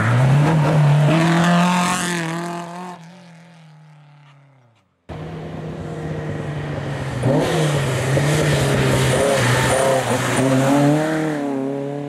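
A classic Alpine A110 rally car driving past at speed, its engine revving up and down through gear changes and dying away, cut off near 5 s. Then a second classic rally car, a Volvo PV, approaches and drives through a bend under power, its engine revs rising and falling as it shifts, louder in the middle and fading near the end.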